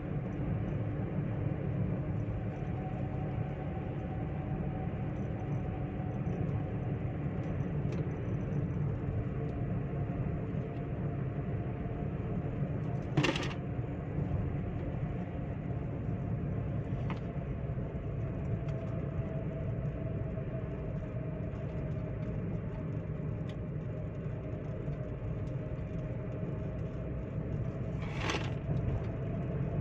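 Chevrolet Spin 1.2 LT cruising at steady speed, heard from inside the cabin: a continuous low drone of road and tyre noise with a faint engine hum. Two short sharp clicks stand out, one near the middle and one near the end.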